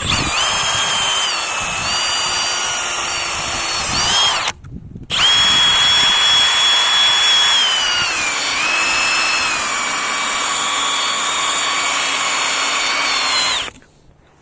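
A handheld electric power tool runs in two long stretches with a brief stop about four seconds in. Its high motor whine dips and shifts in pitch as it bears on the work. It is scrubbing the plow pump's motor-mounting surface clean.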